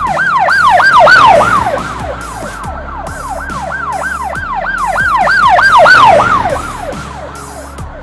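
Emergency-vehicle siren sounding in quick repeated falling sweeps, about three or four a second. It swells loud about a second in, eases, swells again around six seconds in, then fades.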